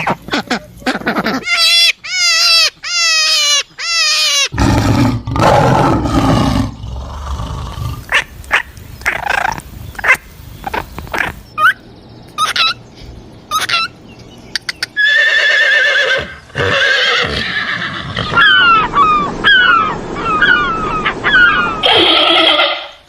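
A string of different animal calls, one recording after another with abrupt changes: repeated falling pitched calls early, a low rough call a few seconds in, short clicking sounds in the middle, and high chirping calls in the last third.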